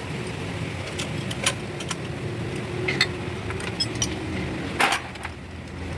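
Truck diesel engine idling steadily, with a few sharp metallic clinks over it.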